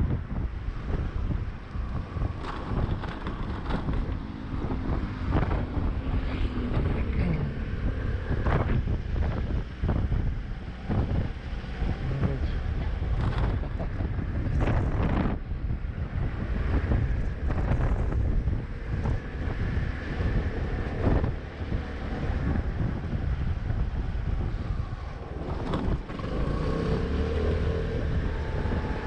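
Car in motion heard from inside: a steady low rumble of engine, tyres and wind buffeting, with many short knocks and bumps along the way.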